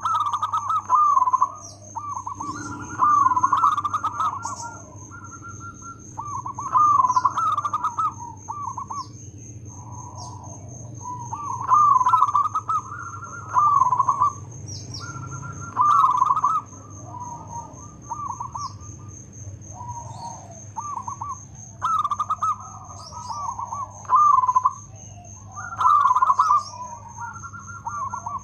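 Zebra dove (local perkutut) cooing its loud, rhythmic song: phrases of quick staccato coos, one about every two seconds. A steady thin high tone and a few short high chirps sound behind it.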